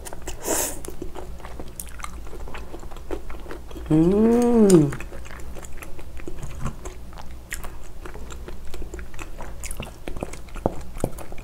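Close-miked wet chewing of soy-marinated raw shrimp, with many small mouth clicks. About four seconds in, a hummed 'mmm' rises and falls in pitch for about a second.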